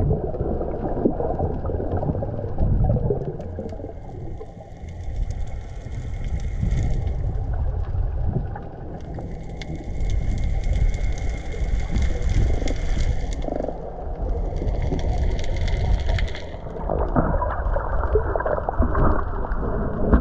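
Steady underwater crackling over a low rumble, which the uploader takes for fresh water seeping up through the sea floor.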